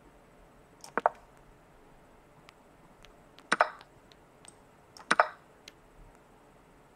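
Three short, sharp clicks as moves are played in an online blitz chess game, each a quick double click, about one, three and a half and five seconds in.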